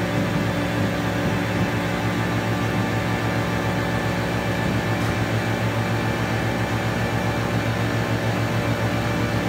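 Homemade light-responsive oscillator synthesiser (the OSC^n) playing a dense, steady noise drone: many held low tones under a hiss, with no breaks or sudden changes.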